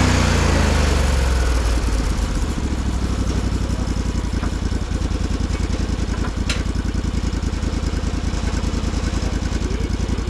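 Sawmill engine dropping from high revs to idle over the first couple of seconds, then idling steadily with an even firing beat. A single sharp click about six and a half seconds in.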